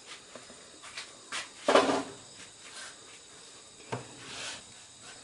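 A few scattered clicks and knocks of hand tools working on an engine, the loudest a little under two seconds in and a sharp click about four seconds in, over a faint, steady, high chirring of insects.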